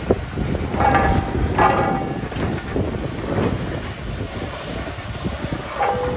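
Reading & Northern 2102, a 4-8-4 steam locomotive, rolling slowly past with a steady rumble of wheels and running gear. A few brief high-pitched tones sound about a second in, again near two seconds, and near the end.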